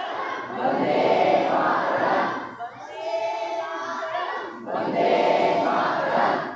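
A group of people calling out together in unison, in three loud phrases of a second or two each with short breaks between.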